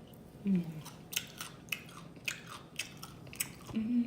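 Close-miked chewing of food: a run of short, crisp mouth clicks and crunches, several a second in bunches, with a brief hummed voice sound about half a second in and another near the end.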